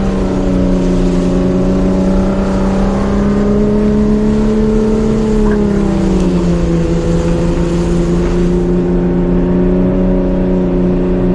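Jeep engine running hard at steady high revs while towing a stuck delivery van up a steep muddy hill on a kinetic rope; its pitch eases down a little about six seconds in and then holds.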